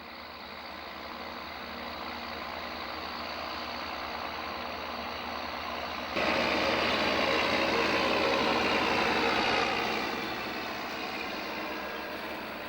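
Large John Deere tractors' diesel engines working under load while ploughing, a steady drone that slowly builds, jumps suddenly louder about halfway through, and eases off again near the end.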